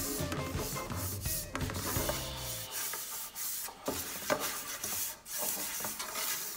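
A bare hand rubs and sweeps icing sugar across the bottom of a dark metal baking pan, dusting it: a dry, scratchy rubbing in irregular strokes.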